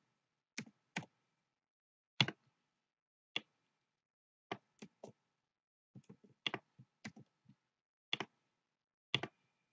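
Keystrokes on a computer keyboard: single key clicks or pairs separated by pauses, with a quicker run of several keys about six to seven and a half seconds in.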